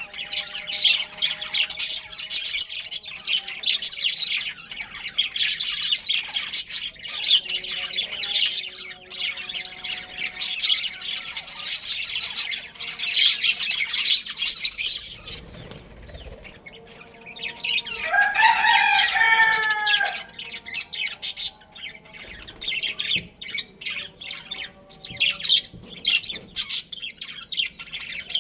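Budgerigars chirping and chattering rapidly and continuously. About two-thirds of the way through, a lower, louder call of a few falling notes from another bird stands out for about two seconds.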